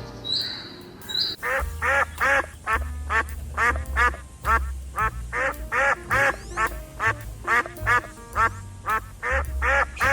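An animal calling over and over in quick, short, rising-and-falling calls, about two or three a second, starting about a second and a half in, over background music with a low bass.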